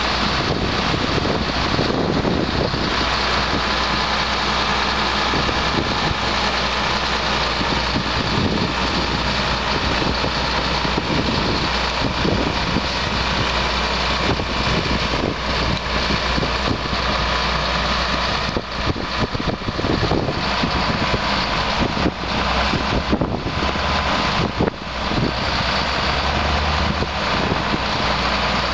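Cat C7 diesel engine of a 2012 RoGator 1194 self-propelled sprayer running steadily, with a thin steady tone above it, while the hydraulics unfold the 120-foot spray boom.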